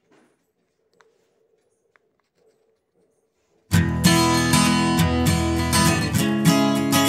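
Near silence for about the first half, then background music with a strummed acoustic guitar starts suddenly and runs on loud.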